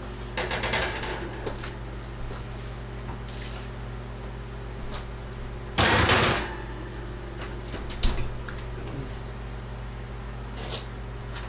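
Metal kitchen clatter of pans and the oven while a roast turkey breast is checked: a run of clinks in the first second or so, a louder scrape about six seconds in, and a sharp knock about two seconds later, over a steady hum.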